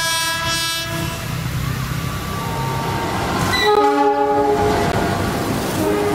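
Train horn sounding twice over the running rumble of a train: one blast ends about a second in, and a second, louder blast of several notes together starts about three and a half seconds in and lasts over a second.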